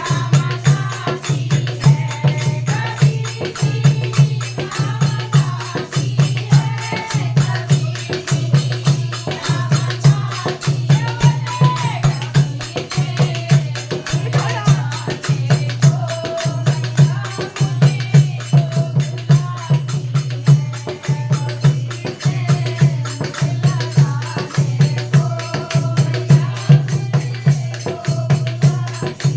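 A Hindi devotional bhajan being sung to a steady drum beat, with jingling percussion like a tambourine or rattle on every stroke.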